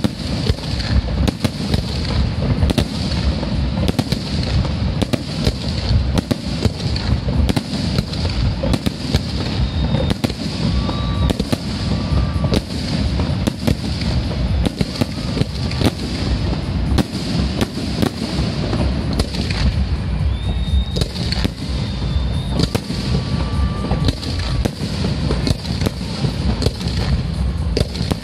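Aerial fireworks display: a dense, continuous barrage of shell bursts overhead, rapid overlapping bangs with no pause between them.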